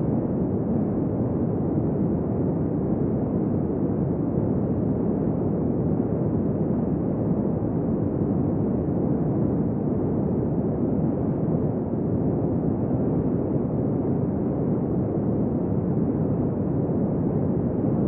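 Steady wind blowing: a deep, even rushing with no gusts, whistles or howls.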